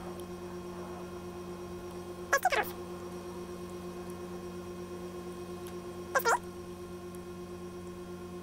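Steady electrical mains hum. It is broken twice, about two and a half and six seconds in, by a short sharp squeak that falls in pitch.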